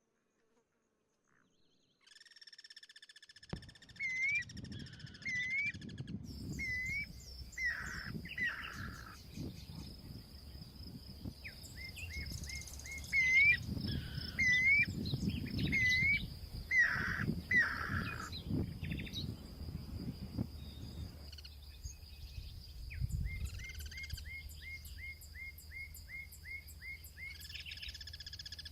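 Guira cuckoos giving alert calls: repeated short, curved whistled notes in overlapping series, ending in a fast run of about ten notes. A steady high thin tone runs beneath from about six seconds in.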